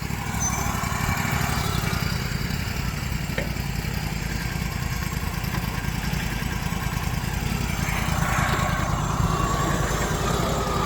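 Engine running steadily with a low rumble; about eight seconds in, a higher steady whine joins it and the sound gets slightly louder.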